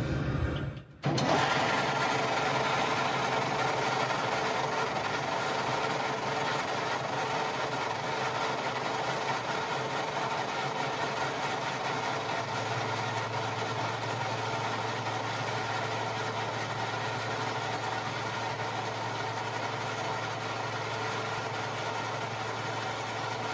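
Metal lathe running steadily as a parting tool cuts into a spinning nylon bar, with a steady motor hum. A lower hum joins about halfway through.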